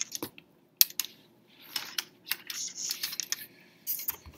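Typing on a computer keyboard: irregular runs of key clicks, with one sharp louder click a little under a second in.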